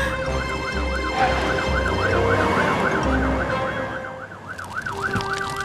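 Cartoon fire engine siren warbling rapidly up and down, about four sweeps a second.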